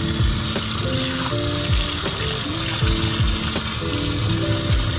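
Tap water running steadily into a stainless steel sink and splashing over fish being rinsed by hand. Background music with a beat and a melody plays over it.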